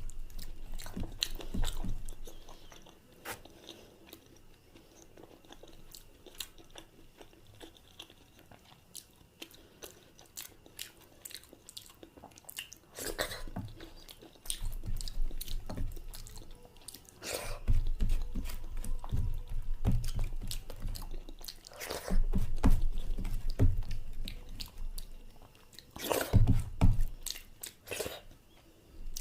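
Close-up sounds of a person eating: chewing and biting with wet clicks and smacks of the mouth, quieter for several seconds and then louder in bursts of chewing.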